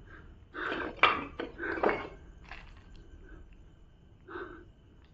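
Footsteps scuffing and crunching over rubble on a concrete floor, with several sharp clinks in the first two seconds and quieter steps after.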